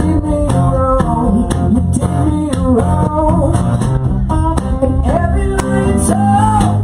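Live rock band playing: a lead guitar line with bent notes over bass and regular drum hits.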